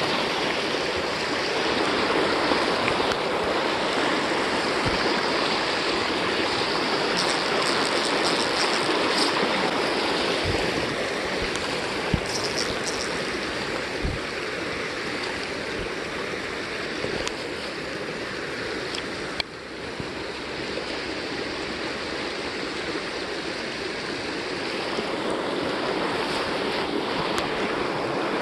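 Creek water rushing and splashing over rocks in shallow riffles, a steady wash of running water, with a few soft low knocks.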